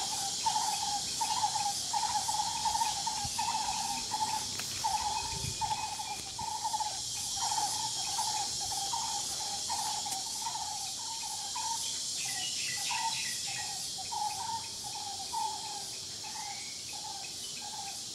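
Steady, high-pitched chorus of insects in the trees, with a lower call repeating about two to three times a second.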